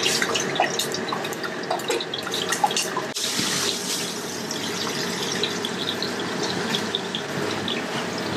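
A whole mango deep-frying in a pot of hot oil: a steady sizzle with many small crackling pops. About three seconds in the sound breaks off and a steadier hiss with fewer pops carries on.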